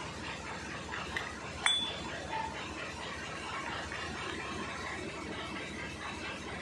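Steel gears of an Eicher 485 tractor differential clinking as they are handled and the splined side gear is fitted over the spider gears: one sharp metallic clink with a short ring about two seconds in, then only faint handling noise.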